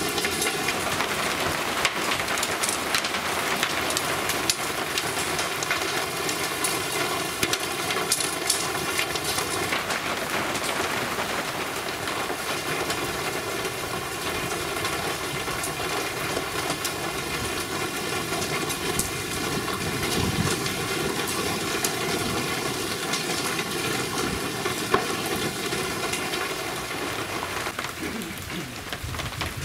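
Heavy thunderstorm downpour: a steady, dense hiss of rain, with scattered ticks of drops striking nearby surfaces.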